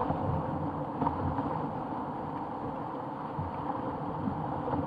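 Whitewater rapids rushing around a canoe, a steady churning roar of fast river water.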